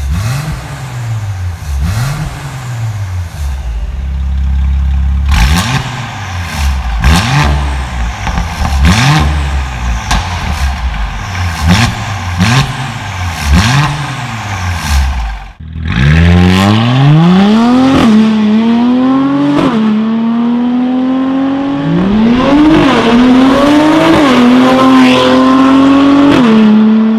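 Mercedes-AMG C43's twin-turbo V6 revved repeatedly at standstill through an Fi valved exhaust, with sharp crackles between blips. It runs first with the exhaust valves closed, then louder with them open. About halfway through it changes suddenly to the car accelerating hard up through the gears, the engine note climbing and dropping back at each upshift.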